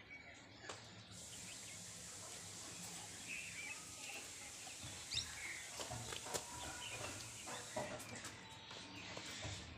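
Faint outdoor ambience: birds chirping now and then over a steady hiss, with a few soft clicks.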